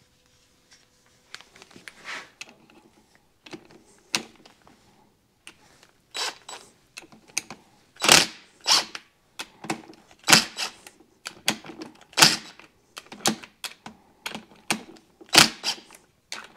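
Metal hand tools clinking and clattering as they are picked up and handled, a string of sharp, irregular clicks that gets busier and louder about six seconds in.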